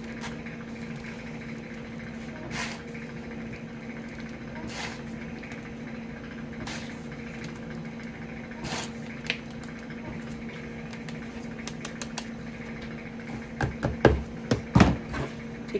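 Faint short clicks about every two seconds as a plastic plunger is pressed down into bath bomb mix packed in a 3D-printed mold, over a steady background hum. Near the end, a run of louder knocks as the plastic tray is tipped over the mixing bowl.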